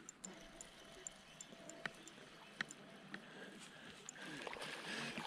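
Faint scattered clicks and light knocks of fishing gear in a small boat while a crappie is reeled in, with a louder rustling noise building near the end.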